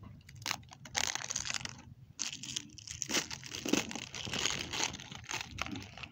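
Plastic packaging of a play dough set crinkling and tearing as it is opened by hand, in irregular rustling bursts with a short pause about two seconds in.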